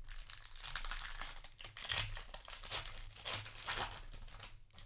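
Foil wrapper of a Magic: The Gathering booster pack crinkling and tearing as the pack is ripped open, a dense run of crackles loudest about two and three to four seconds in.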